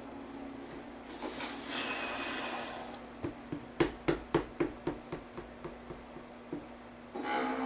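Horror film soundtrack: a rushing hiss for about two seconds, then a run of about a dozen sharp knocks, roughly three a second, growing fainter, over a faint steady hum.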